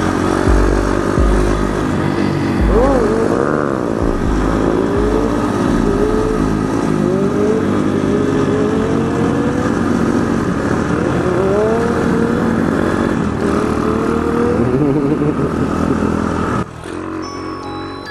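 Mini motorcycle engines running and revving up repeatedly as the bikes ride along the street, mixed with background music with a heavy bass beat. Near the end the engine sound cuts off abruptly and a chiming, mallet-like melody takes over.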